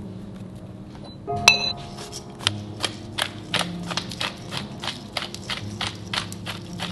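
A sharp ringing clink, then steady rhythmic clicking about three times a second: kitchen utensil work against a hard surface, under soft background music.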